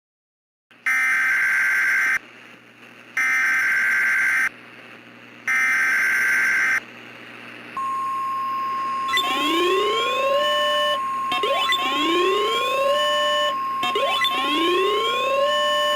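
Emergency Alert System SAME header: three data bursts, each a little over a second long. They are followed by the NOAA Weather Radio 1050 Hz warning alarm tone held steady, signalling a new warning. About a second into the tone, a rising whooping siren sound joins over it and repeats about every two seconds.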